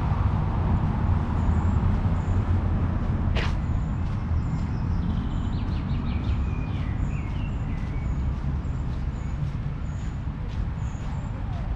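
City street ambience: a steady low rumble of traffic, with one short sharp sound about three and a half seconds in and a few brief high chirps a little later.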